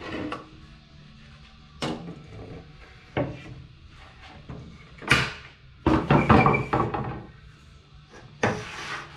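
A wooden board and tools being handled before a cut: a few sharp wooden knocks, then heavier clattering and scraping in the second half.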